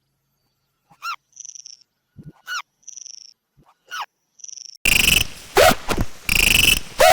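Cartoon animal sound effects: short squeaky swoops about every second and a half, each followed by a buzzy, pulsing frog croak. About two-thirds of the way in, the sounds turn much louder and denser.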